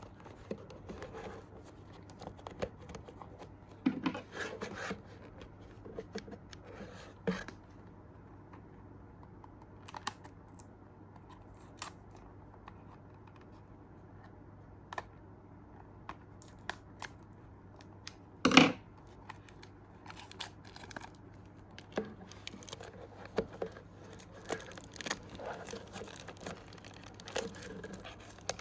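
Packaging of a Mini GT diecast model car being handled and opened: scattered tearing, crinkling and small clicks, with one louder knock about two-thirds of the way through.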